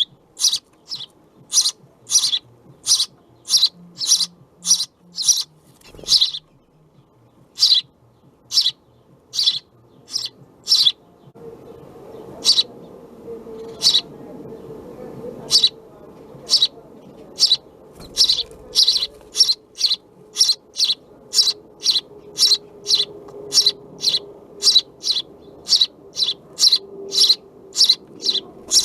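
House sparrow chirping, a long run of short sharp chirps at about two a second, thinning out for a few seconds about a third of the way in. A faint steady low hum joins underneath from about the middle.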